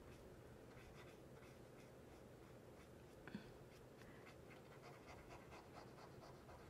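Near silence, with faint scratchy strokes of a paintbrush laying oil paint on canvas and one small tap about halfway through.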